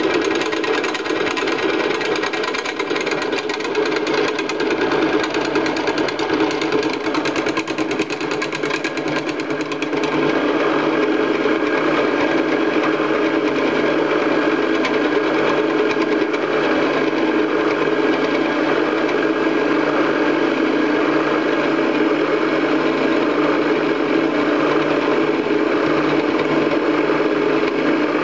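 Old Craftsman drill press, converted for milling, running with an end mill taking a light five-thousandths pass across a metal block: a steady machine hum with a fine rapid chatter from the cutter in the first part, turning smoother and slightly louder about ten seconds in.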